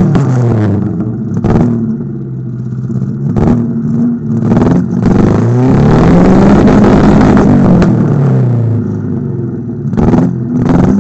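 Daewoo car engine heard through its exhaust, settling to idle, then revved up once in a slow rise and let fall back to idle. Several short sharp cracks come through at moments, loudest near the end.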